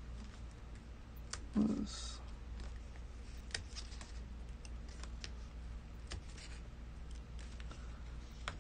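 Faint paper rustling and scattered small ticks as metal tweezers pick and peel the backing papers off small foam adhesive dots on a cardstock panel.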